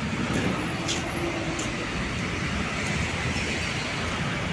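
Steady road traffic noise from vehicles on nearby streets.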